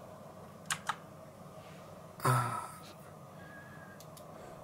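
Computer mouse clicks while working through BIOS menus: a quick pair of clicks about a second in and a few lighter clicks later. A short low vocal sound, a sigh or grunt, comes in the middle.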